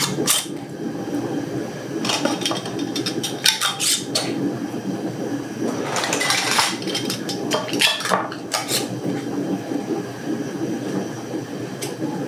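Glass mason jars and metal canning lids clinking and clattering as they are handled on a countertop, in several short bursts of clicks.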